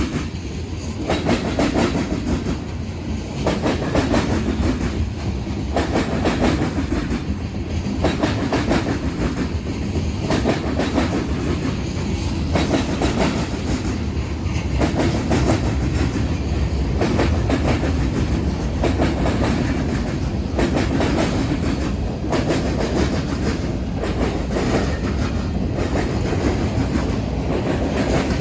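Freight train cars rolling past over a railroad diamond crossing, steel wheels clacking in a steady repeating rhythm over a continuous rumble.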